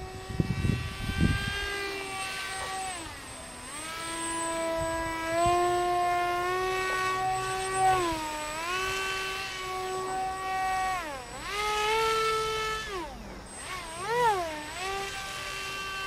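Electric motor and propeller of a HobbyKing Mad Bird RC foam plane in flight: a steady buzzing whine whose pitch repeatedly drops and rises, with quick up-and-down swoops near the end. Brief low buffeting at the start.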